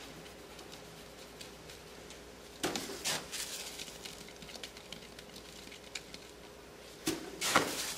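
Plastic slotted litter scoop being shaken over very fine clumping cat litter, the loose grains sifting through the slots and pattering back into the box around a lifted urine clump. There are two louder bursts of shaking, about two and a half and seven seconds in.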